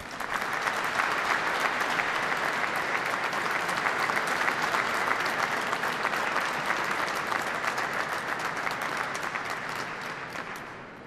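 Audience clapping steadily; it starts abruptly and fades away near the end.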